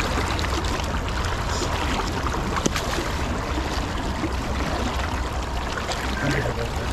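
Steady rush of a fast river current flowing around wading legs, with a few small clicks over it.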